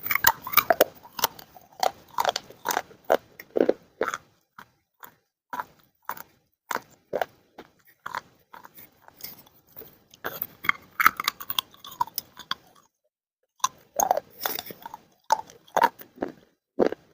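Dry clay crunching and crackling in quick, irregular snaps and crumbles, with a short pause about two-thirds of the way through.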